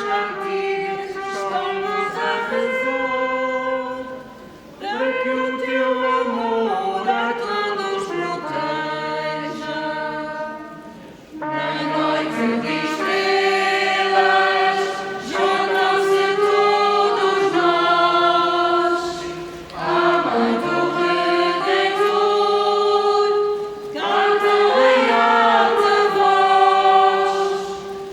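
A group of voices singing together in chorus, in sung phrases broken by short pauses for breath four times.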